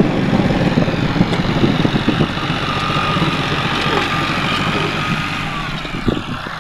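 Diesel tractor engine running steadily as it pulls a tillage implement across a ploughed field, growing somewhat fainter near the end.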